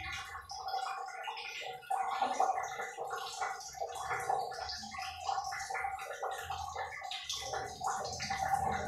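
A Muscovy duck bathing in a plastic basin, its body and wings stirring and splashing the water in quick, irregular splashes and sloshes.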